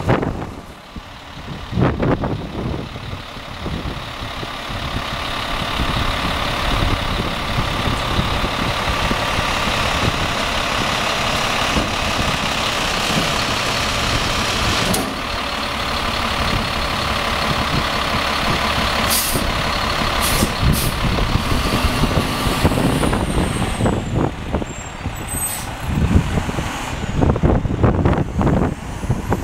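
Heil Multitask SL split garbage truck running its hydraulic packer with the Autocar ACX engine held at raised revs: a steady mechanical whine for about twenty seconds. A few short sharp hisses of air brakes follow, and near the end the truck pulls away with gusts of wind on the microphone.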